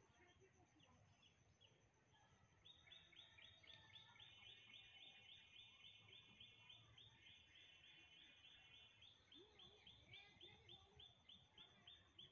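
Near-silent outdoor ambience in which a bird calls a fast, even run of repeated high chirps, about four a second, starting about three seconds in and going on to the end.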